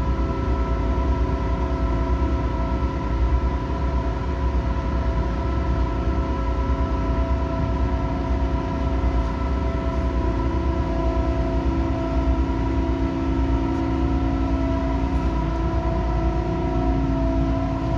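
Steady drone of a ship's machinery heard on deck while under way: several steady hum tones over a continuous low rumble.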